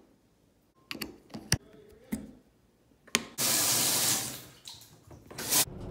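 A few sharp clicks and knocks, then water running from a tap into a sink for about a second and a half before it eases off, and a brief loud rush of water near the end.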